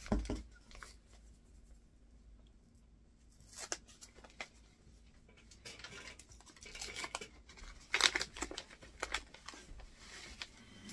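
Paper being handled: greeting cards and envelopes rustling and tearing in short, irregular bursts, loudest just after the start and again about eight seconds in.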